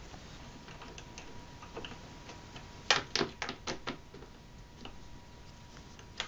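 Ratchet socket wrench clicking as the belt cover bolts of a Yamaha Grizzly ATV are run in: a quick cluster of five or six sharp clicks about three seconds in, with scattered faint ticks around it and one more click near the end.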